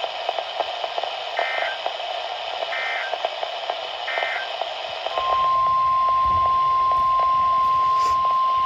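NOAA Weather Radio over a hiss of reception static: three short buzzing bursts of SAME digital data tones, then about five seconds in the steady 1050 Hz warning alarm tone starts and holds, signalling that a new warning broadcast is about to begin.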